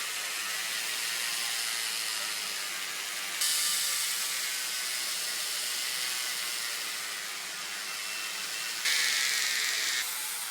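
Steady hissing with a faint whir beneath it, stepping abruptly louder about three seconds in and again briefly near the end.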